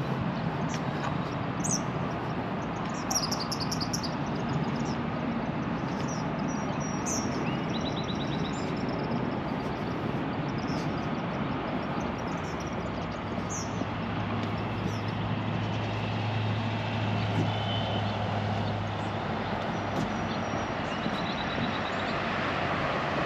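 Steady rumble of road traffic, with small birds chirping high over it in short repeated calls. A low engine hum grows stronger a little past halfway, then eases.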